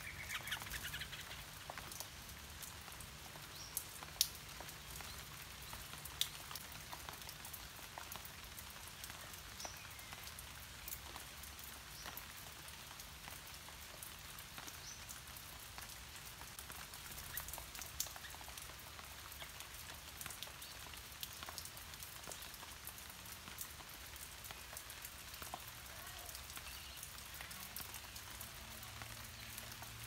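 Steady rain falling on leaves, with individual drops ticking, a few louder than the rest. A brief bird call sounds about a second in.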